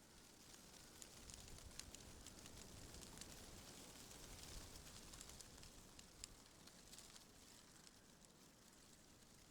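Faint wind rustling through tree leaves, a soft hiss with scattered light crackles and a low rumble of wind, swelling a little in the middle and easing toward the end.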